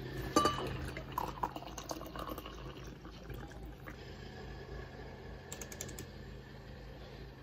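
Liquid poured from a glass bottle into a ceramic mug, starting with a splash about half a second in and trickling on for a couple of seconds. A short run of light clicks follows later.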